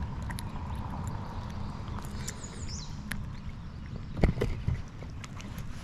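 Low wind rumble on the microphone, with small clicks from handling a fish as it is unhooked and let go into the river, and a brief louder thump about four seconds in.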